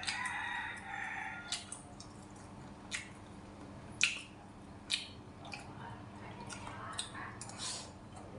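A rooster crows once, about two seconds long at the start. Then a spoon and chopsticks clink sharply against a ceramic rice bowl several times, the loudest about four seconds in.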